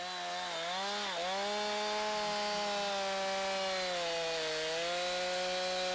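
Two-stroke chainsaw at full throttle cutting into a tree trunk in a plunge cut. It runs steadily under load, its pitch dipping briefly twice in the first second or so.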